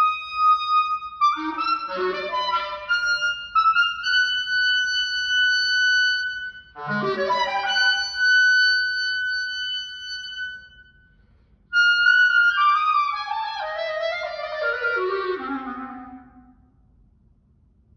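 Unaccompanied solo clarinet. It plays quick flurries of notes and two long held high notes, then a fast run tumbling down to a low note and stopping about sixteen seconds in.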